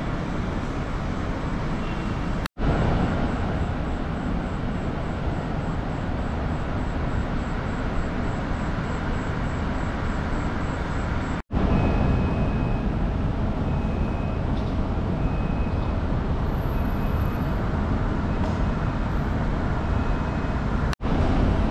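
Steady rumble of wind and city traffic recorded while cycling through the streets, broken by three brief dropouts. In the second half a short, high beep repeats about once a second.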